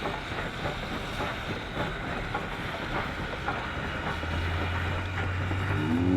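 Excursion train rolling along the track, its wheels clicking irregularly over the rails. About four seconds in, a steady low hum comes in and the sound grows louder.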